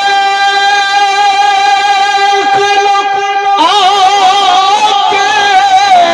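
A man singing a Punjabi devotional kalaam into a microphone. He holds one long steady note, and a little past halfway it gives way to a wavering, ornamented line that falls in pitch near the end.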